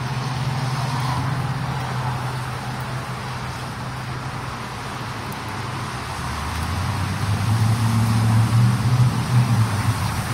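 Road traffic on a wet street: a steady low engine hum over an even hiss, then a car's engine and tyres grow louder from about seven seconds in as it approaches, loudest near the end.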